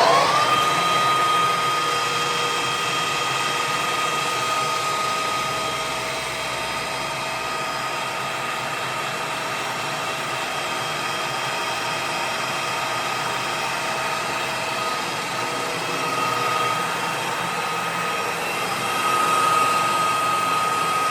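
AYEL-TECH CD6241x1500 metal lathe finishing its spin-up in the first half second, then running steadily at speed with a steady high whine, which grows a little louder twice near the end.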